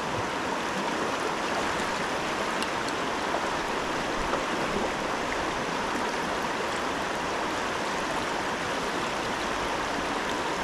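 River water rushing steadily: the Salmon River's current flowing as a continuous, even wash.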